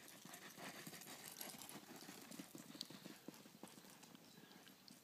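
Near silence with faint, quick, irregular tapping, busiest in the first three seconds or so.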